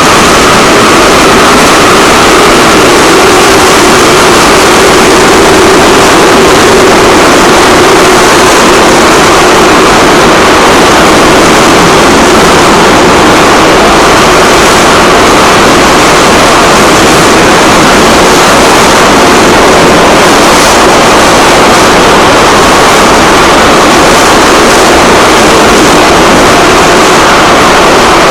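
Metro train running at speed through a tunnel, heard from inside the carriage: a loud, steady rumble and rush with a humming tone that slowly drops in pitch and fades.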